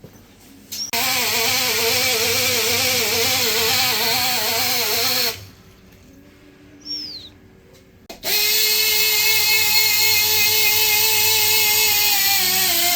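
Electric drill whining at speed in two runs of several seconds with a short pause between. The first run wavers in pitch; the second holds steady and sags near the end. It is driving the big-block Chevrolet's oil pump to build oil pressure on the gauge.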